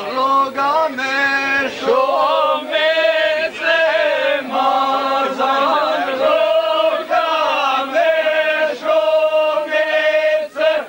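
Group of men singing a slow, chant-like song in long held notes over a steady lower drone; the singing stops just before the end.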